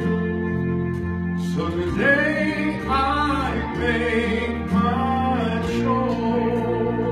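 A man singing a Christian song over sustained instrumental accompaniment, his voice coming in about two seconds in.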